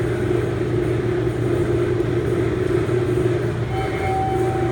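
Elevator running: a steady hum and rumble, with one short beep near the end.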